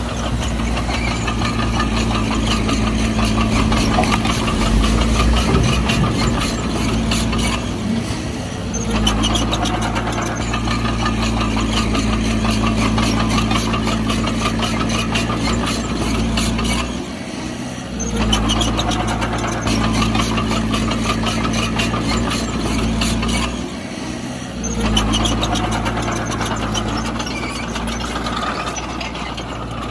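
Heavy diesel engine of earthmoving machinery running steadily, its sound dipping briefly three times.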